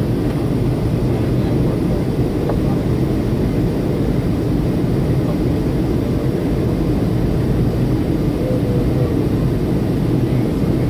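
Steady low rumble of an airliner's engines and rushing air inside the cabin during the climb after takeoff.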